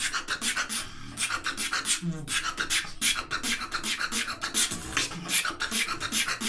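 Human beatboxing: a fast run of hissing hi-hat and snare sounds made with the mouth, several a second, over short low lip-roll bass buzzes.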